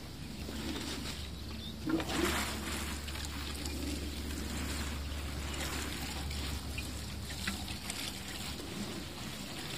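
Green plastic watering can pouring through its rose onto young plants and soil in a raised bed. The water starts about two seconds in and then runs as a steady sprinkle.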